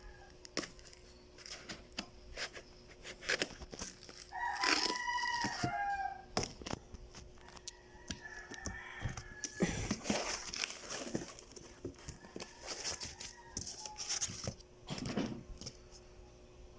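Packaging being handled, with scattered rustles and clicks. A bird calls once, drawn out and rising then falling, about four and a half seconds in, with fainter calls later on.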